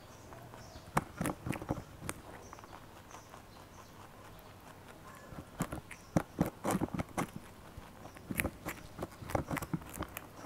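Rabbits crunching raw cauliflower, close-miked, in three bursts of rapid crisp bites and chews: about a second in, around six to seven seconds, and again from eight and a half seconds to near the end.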